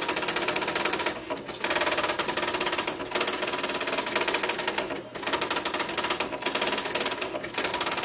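Royal Officemaster 2000 daisy wheel printer printing its status page: a fast, continuous rattle of print-hammer strikes, broken by brief pauses about five times.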